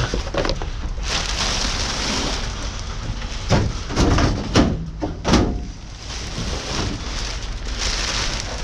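Rummaging through debris and scrap in a dumpster: a steady rustle with several sharp knocks and clatters about halfway through.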